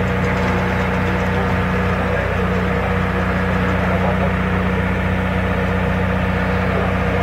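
Engine of a crane running steadily at idle, a low, even hum, while its sling holds a peeled log.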